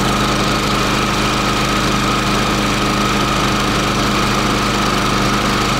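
Champion 3400-watt dual-fuel inverter generator running steadily in economy mode, with an even engine hum and no change in speed.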